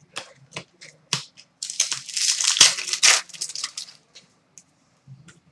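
A few light clicks of cards being handled, then about two seconds of loud crinkling and tearing: a hockey trading-card pack's foil wrapper being torn open.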